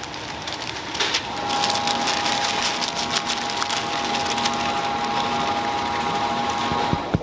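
Stiff baking paper crinkling and rustling as a dry flour-and-cocoa mix is tipped off it into a steel mixing bowl, a dense crackle of small noises. From about a second in, a steady high hum from a machine runs behind it.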